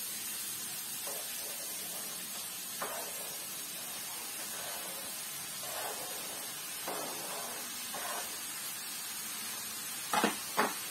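Oil in a frying pan sizzling steadily, with faint scraping as diced potatoes are pushed off a plastic cutting board into the pan. A couple of sharp knocks near the end as the board is put back down on the counter.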